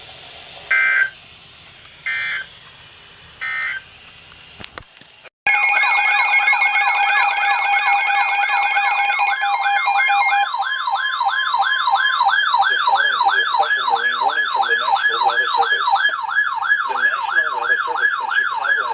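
Weather radio alert tones: three short EAS/SAME digital data bursts about a second apart. Then, after a click and a brief dropout, a loud siren-like warble that rises and falls about twice a second, with steady alert tones sounding under it for the first several seconds.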